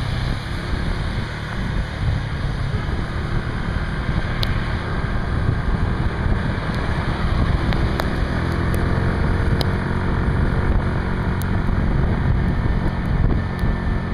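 Wind buffeting the microphone of a moving motor scooter as a steady rumble, with the scooter's small engine running underneath and a few scattered sharp ticks.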